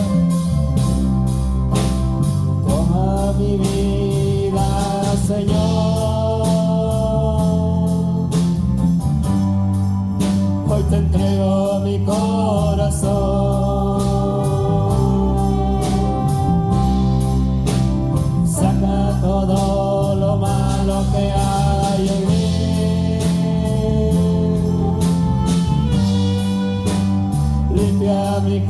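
Live church worship music: a sung melody held over a band's bass and a steady drum beat.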